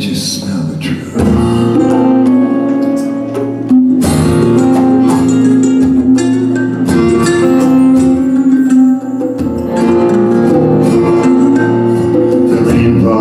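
Live acoustic folk band playing an instrumental passage: acoustic guitars strumming with mandolin, violin and djembe, long notes held over the strumming.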